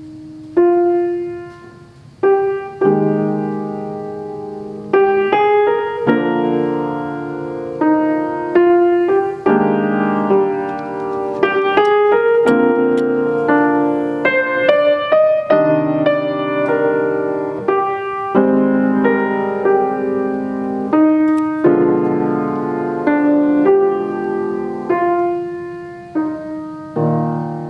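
Solo piano playing chords and melody notes, each struck and left to ring and fade, with new ones about once a second.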